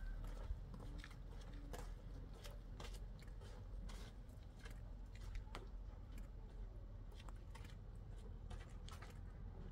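Faint crunching footsteps on a frozen dirt-and-gravel lane, small sharp clicks about twice a second, over a low steady rumble.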